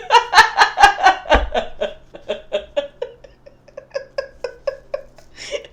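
A person laughing: a long run of quick 'ha' pulses, about four a second, loud at first and trailing off quieter.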